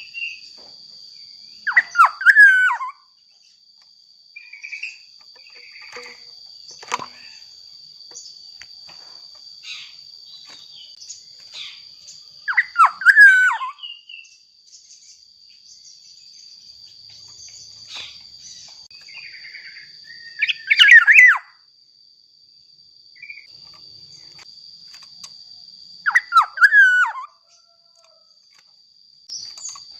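Black-naped oriole singing loud fluty whistled phrases, four of them, each about a second long. Under them runs a steady high-pitched insect buzz, with a few faint chirps.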